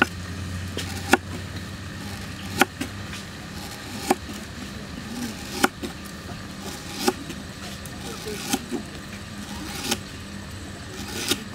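Knife slicing through a lemongrass stalk onto a wooden chopping block: a sharp chop about every second and a half, over a steady low hum.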